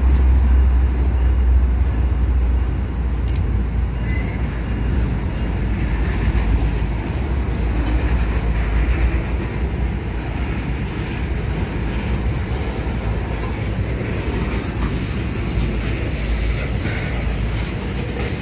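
Freight train passing close by. The low rumble of its diesel locomotives fades over the first few seconds and gives way to the steady rolling of hopper and tank cars over the rails.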